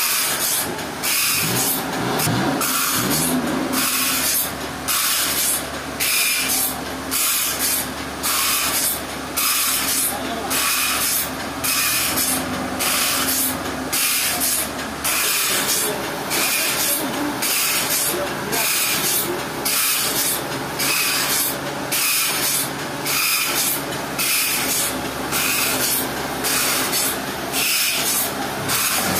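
Sawmill saw cutting through a trembesi log: a loud, steady hiss over the hum of the machine, dipping briefly at an even rhythm a little more than once a second.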